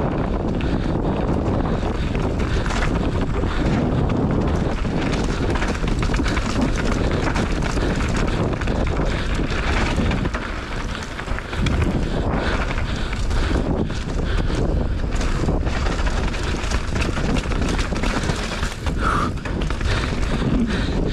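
Downhill mountain bike descending a dirt trail: steady wind rush over the microphone, with frequent short knocks and rattles from the bike over bumps.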